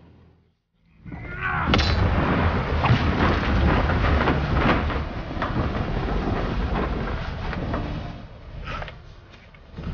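Storm sound effects: a loud rushing and rumbling din full of sharp cracks and crashes. It cuts in suddenly about a second in after a moment of near silence and eases off near the end.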